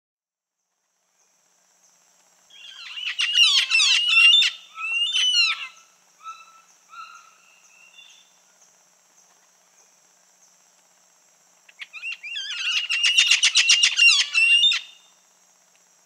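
Red-fan parrot (Deroptyus accipitrinus) calling: a burst of harsh, rapidly repeated calls, then a few softer, shorter notes that trail off. After a pause of several seconds comes a second harsh burst of rapid calls. A steady high-pitched buzz runs behind throughout.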